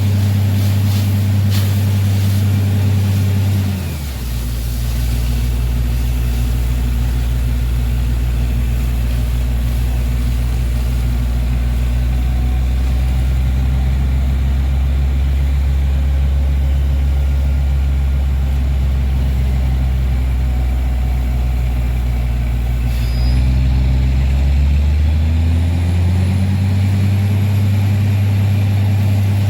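Tractor borewell drilling rig running, its engine droning steadily; about four seconds in the engine note drops lower, and near the end it climbs back up to its first speed.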